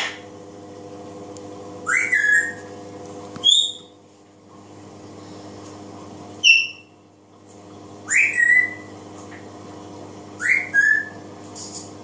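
African grey parrot whistling: five short notes, a second or two apart, each sliding up quickly and then held briefly, some higher-pitched than others.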